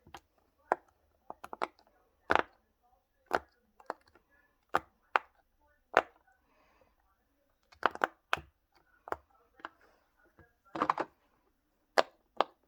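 Silicone pop-it fidget toy, a unicorn-shaped one, having its bubbles pressed through one after another: a series of sharp pops at an uneven pace, about one or two a second, some coming in quick clusters.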